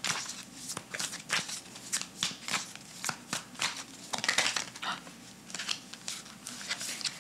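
A deck of tarot cards being shuffled by hand: many quick, irregular card clicks, several a second.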